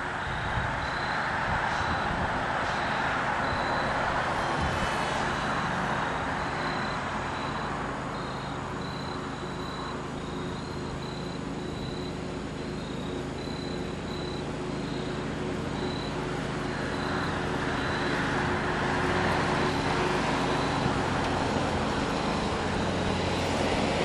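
A lawnmower engine droning steadily, mixed with wind rumbling on the microphone. It grows louder over the last several seconds as the mower comes closer.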